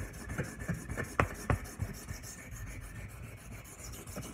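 Steel knife blade (a D2 Ontario RAT 2) rubbed back and forth in quick, light strokes on a wet 400/1000 combination whetstone, setting the bevel. Two sharp clicks come a little over a second in.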